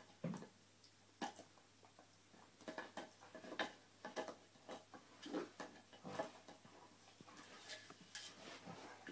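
Dog gnawing a hard antler chew: irregular clicks and scrapes of teeth on antler.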